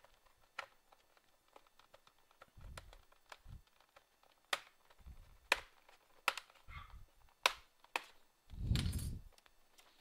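Plastic snap clips of an HP 15-AY laptop's case clicking loose one after another as the panel is pried apart, sharp clicks at uneven intervals. Dull thumps of the laptop being handled come between them, the loudest about a second before the end.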